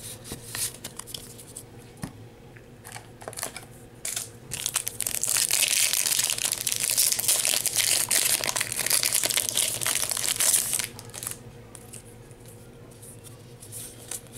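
Foil wrapper of a Yu-Gi-Oh booster pack crinkling and tearing as it is pulled open, loud and continuous for about six seconds in the middle. Softer scattered ticks come before and after it.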